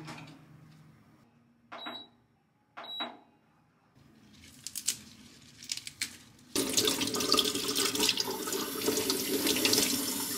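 Two short high beeps about a second apart, then leaves rustling. About two-thirds of the way in, the kitchen faucet comes on and water runs steadily into a stainless steel sink while lettuce leaves are rinsed under the stream.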